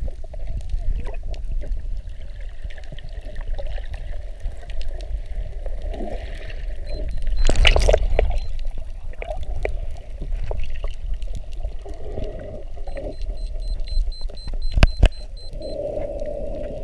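Muffled underwater sound picked up by a camera held below the surface: a steady low rumble with water sloshing and bubbling. About halfway through comes a louder rushing burst, and near the end two sharp knocks.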